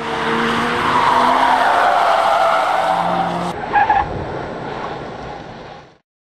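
Car tyre-screech sound effect: a long, loud skid with an engine note underneath, stopping abruptly near the end.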